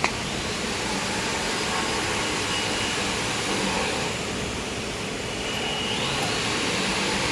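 A toilet paper band saw cutting machine running: a steady machine whir and hiss with faint steady tones and gentle swells.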